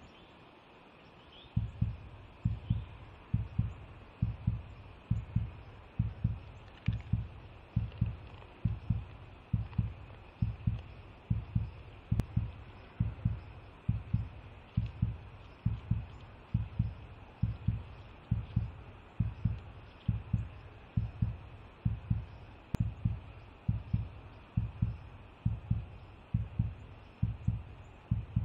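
A deep, heartbeat-like thumping pulse that repeats steadily about one and a half times a second, starting about a second and a half in.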